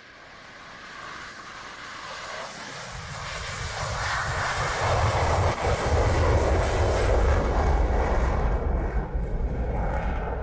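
The single turbofan of an F-35A Lightning II taking off and climbing out. The jet noise swells steadily, a deep rumble joins about three seconds in, and it is loudest from about five to nine seconds.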